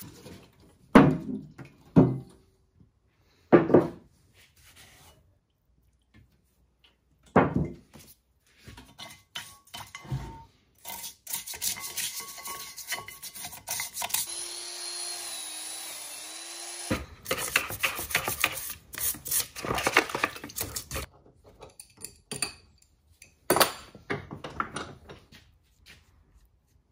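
Cast-iron drill press parts and hand tools being handled on a workbench. There are several sharp metal clanks in the first ten seconds and another about 23 seconds in. In between comes a long stretch of scraping and rubbing, with a steady tone and hiss for about three seconds in the middle of it.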